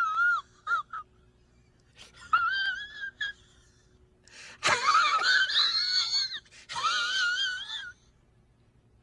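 High-pitched, wheezy cartoon-style laugh sound effect. It comes in several bursts with a wobbling pitch, and the longest burst is about five seconds in.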